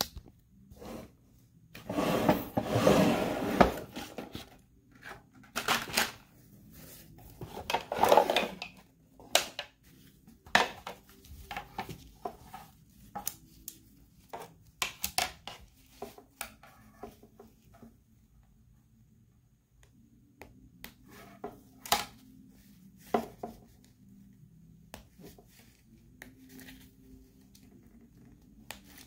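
Hands handling small cloth toy uniform pieces and accessories: fabric rustling and scattered small clicks and knocks. The loudest rustling comes about two seconds in and again around eight seconds.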